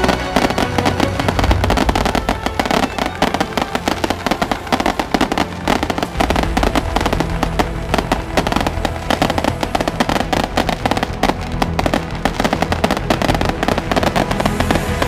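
Firecrackers crackling in a dense, continuous barrage of rapid pops, over loud music.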